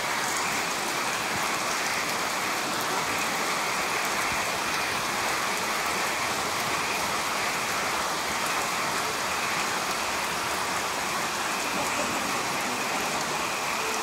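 Steady downpour of rain falling on garden foliage and soaked ground, an even, unbroken hiss.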